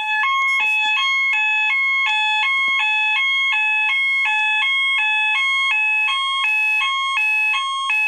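System Sensor fire alarm horn sounding its hi-lo pattern, set off by a pull station. It alternates steadily between two close pitches, a higher and a lower tone, switching about four times a second.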